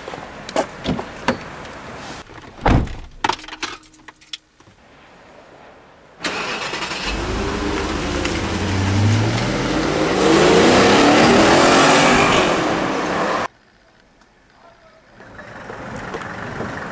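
Car engine revving and accelerating for several seconds, its pitch rising, then cut off suddenly about thirteen seconds in. Before it come a series of sharp clicks and one heavier knock.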